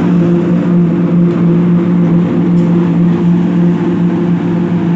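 An engine running steadily at one constant speed, a low even drone that holds the same pitch throughout.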